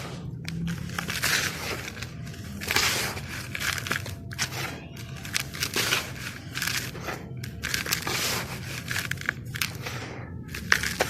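Charcoal sand slabs being crushed and crumbling, in a string of gritty crunches with short pauses between them.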